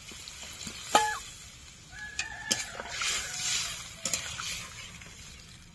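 Chickens clucking, with a short call about a second in and more calls around two seconds in.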